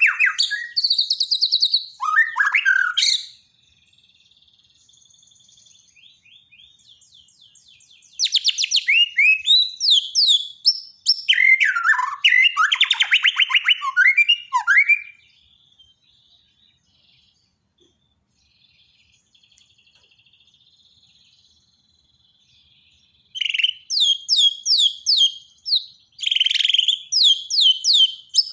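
White-rumped shama (murai batu) song of the kind used as daily masteran training for caged birds: three loud bouts of rapid, quickly repeated whistled notes and chatter, separated by stretches of faint twittering.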